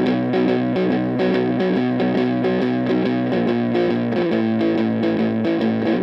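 Fender Jazzmaster electric guitar played through a Bookworm Effects Seths Fuzz pedal into a Silvertone 1472 tube amp: gritty, heavily fuzzed chords strummed in a steady rhythm, shifting to a new chord about four seconds in.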